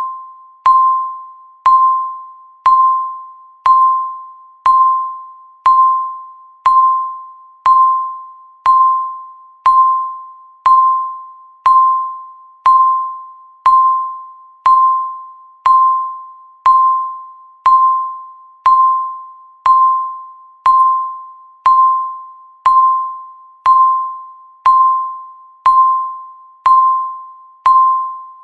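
Countdown timer's per-second tick: a short beep at one steady pitch, struck with a sharp click and fading away, repeating evenly once every second.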